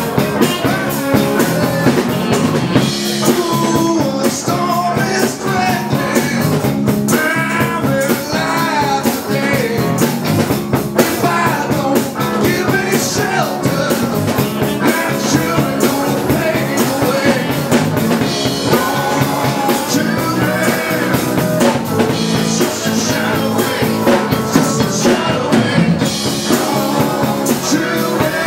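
Live band playing a rock and roll number with drum kit and electric guitar under a melodic lead line.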